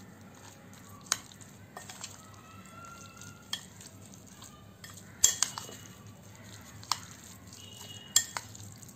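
A metal spoon stirring a wet mash of roasted eggplant, onion and herbs in a glass bowl: soft squelching, with several sharp clinks of the spoon against the glass, the loudest a little past the middle.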